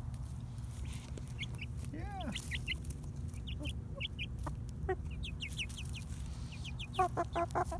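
Young Buff and Lavender Orpington chickens peeping and clucking as they forage: short high peeps scattered throughout, one longer call that rises and falls about two seconds in, and a quick run of clucks near the end, over a steady low rumble.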